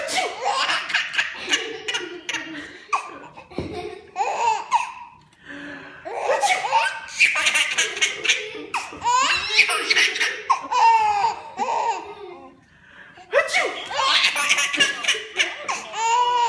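A baby laughing hysterically in repeated fits of belly laughs, broken by a few short pauses.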